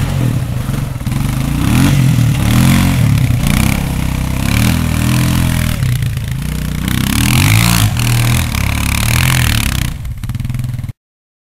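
ATV (four-wheeler) engine revving up and down as it is ridden, its pitch rising and falling every second or two. The sound cuts off suddenly near the end.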